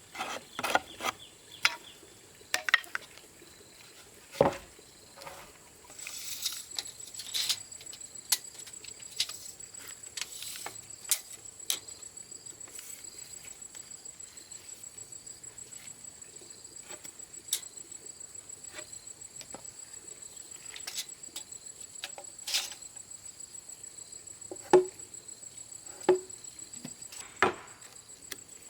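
Scattered sharp knocks and taps of bamboo being worked by hand. From about six seconds in, an insect trills steadily in the background, high-pitched and rapidly pulsing.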